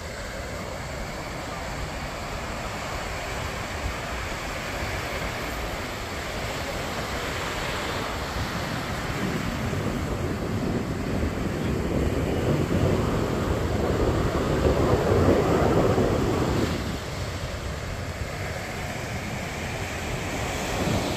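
Surf washing on the beach with wind buffeting the microphone, a steady rush that swells louder for several seconds in the middle before falling back.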